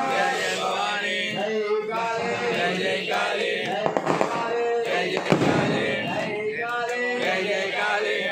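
Priest chanting Sanskrit mantras in a melodic recitation for a Hindu puja, with a few sharp cracks between about four and five and a half seconds in.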